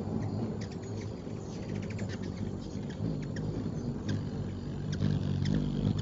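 Ruby-throated hummingbirds chipping and chittering as they squabble around a feeder: many short, sharp high-pitched chips in quick runs, over a low steady hum.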